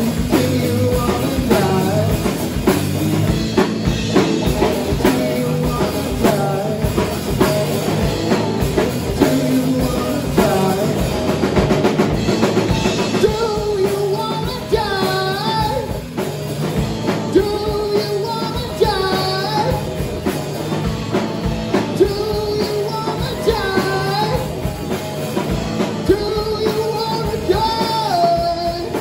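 Live rock band playing: two electric guitars, electric bass and a drum kit, loud and steady, with a sliding, bending lead vocal line over the top from about halfway through.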